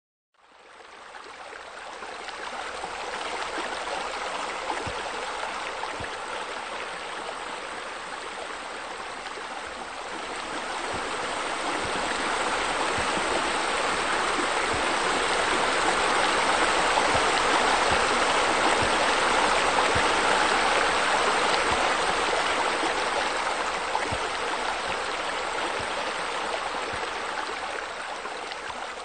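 Running, splashing water of a pool water feature, streams spilling from a raised wall into the pool. It fades in at the start, grows louder toward the middle and eases off near the end.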